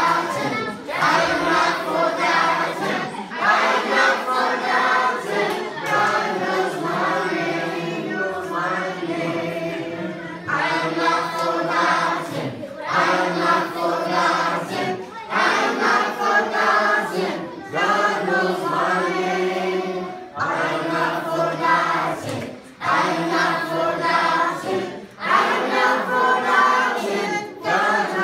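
A large group of children and adult leaders singing a song together without instruments, in sung phrases with short breaks between them.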